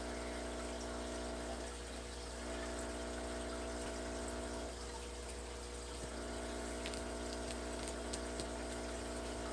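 Aquarium filter running: a steady electric hum with water trickling.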